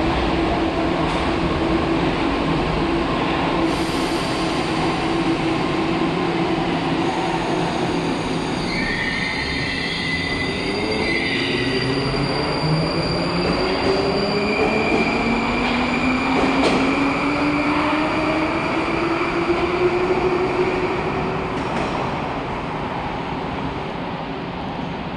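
Baltiets (81-722 series) metro train pulling away from the platform. An electric whine rises in pitch as the train picks up speed, over a steady rumble of wheels on rail, with high whistling tones in the middle. The sound fades slightly near the end.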